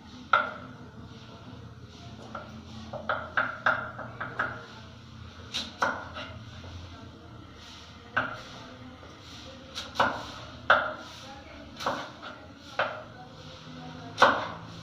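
Kitchen knife chopping vegetables on a cutting board into 5 mm macedoine dice: irregular sharp knocks, some in quick runs of two or three, about fifteen strokes in all.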